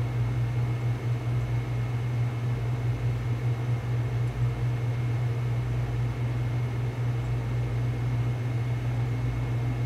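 Steady low hum with an even hiss behind it, unchanging throughout, like a fan or electrical equipment running.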